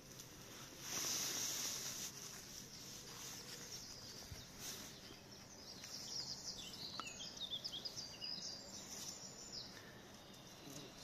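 Outdoor ambience with small birds chirping and twittering, busiest in the second half, and a brief rush of noise about a second in.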